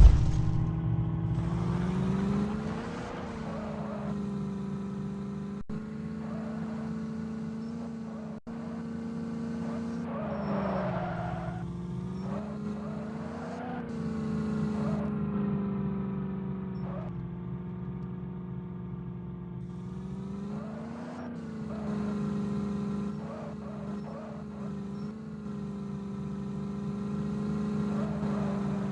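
Mahindra Thar's engine running under load off-road with a steady drone, its pitch rising briefly as it revs up about three times.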